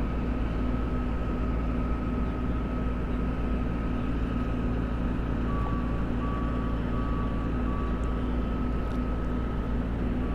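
A steady low engine drone with a thin high tone over it. From about halfway through, a beeping tone comes and goes about twice a second.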